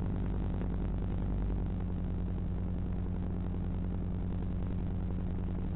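Steady low electrical hum with a hiss over it, the kind of audio an FPV goggle DVR records from the video link; it holds the same pitch and level throughout rather than following the drone's throttle.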